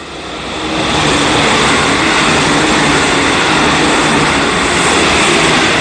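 A JR Central 313 series electric multiple unit running through a station without stopping, passing close by. Its rumble and rail noise builds over about the first second, then stays loud and steady as the cars go past.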